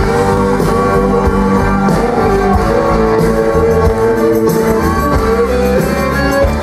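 Live pop-rock band playing the instrumental opening of a song, with electric guitars and piano over bass, heard from the audience seats in a theatre.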